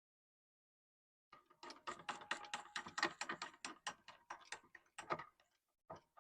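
Rapid light clicking, about seven clicks a second for roughly four seconds, as a nut is turned onto the bolt that mounts a Yetter Twister closing wheel.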